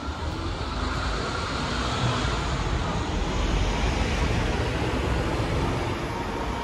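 City bus engine running close by: a steady low rumble that grows louder about a second in and then holds.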